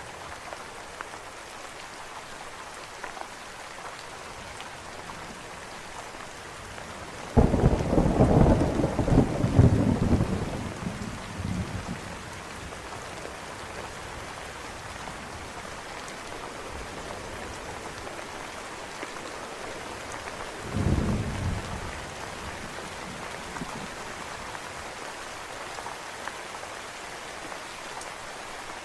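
Steady rain falling throughout. A sudden loud thunderclap about seven seconds in rumbles on for about four seconds, and a shorter, quieter roll of thunder follows about twenty-one seconds in.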